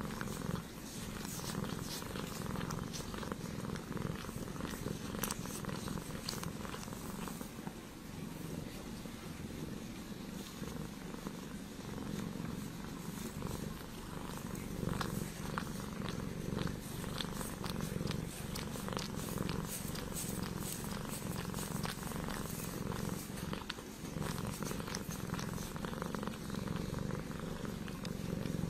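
Ragdoll kitten purring steadily and close up, with many faint crackles mixed in.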